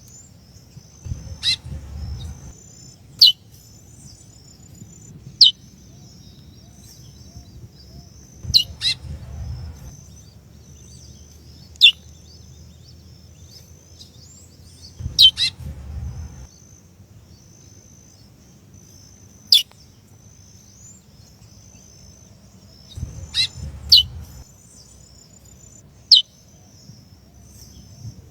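Female curió (chestnut-bellied seed finch) giving single sharp, downward-sliding call notes every few seconds, the calls a female uses to excite a male. A faint high twittering runs underneath, and a low rumbling noise comes four times with some of the calls.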